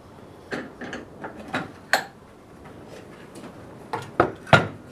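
Irregular light clicks and knocks of a hand-held circular saw being handled and turned over, about eight in all, with the loudest three close together near the end.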